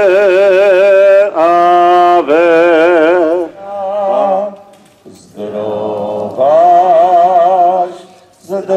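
Liturgical chant sung in long held notes with vibrato, in phrases broken by short pauses.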